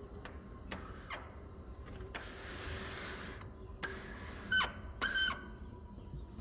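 Backyard feeder ambience: a steady high insect trill with scattered short bird chirps and clicks, and a rush of noise lasting about a second in the middle. Near the end come two short, harsh bird calls about half a second apart, the loudest sounds here.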